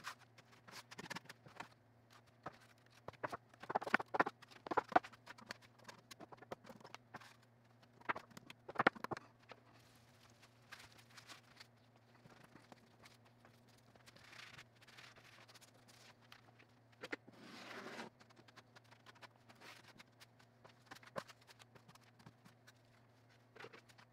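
Wet feather-finish concrete underlayment being spread over a countertop with a trowel and gloved hands: irregular soft clicks and knocks, with a longer scrape twice in the second half, over a low steady hum.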